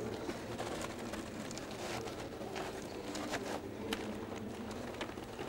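Glued gauze and jute facing being peeled off the face of a mosaic panel: soft rustling with scattered faint crackles as the cloth comes away from the tesserae.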